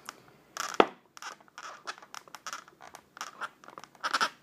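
Scratching and rubbing from hands working at a polystyrene foam packaging box, with a sharp knock just under a second in.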